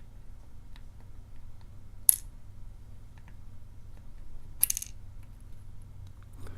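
Small metal pins from a Morris padlock's cylinder clinking onto a hard surface as the lock is taken apart. A few faint ticks and two sharp, ringing clinks, one about two seconds in and one near five seconds in.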